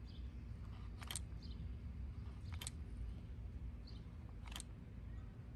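Ox Tools dual thrust caulk gun being pumped to push out silicone: sharp clicks of the trigger and plunger mechanism, three loud ones about one and a half to two seconds apart, with fainter clicks in between.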